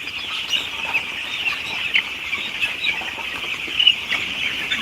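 A large flock of chickens calling all at once: a dense, steady chorus of many short high peeps, with a few louder calls standing out.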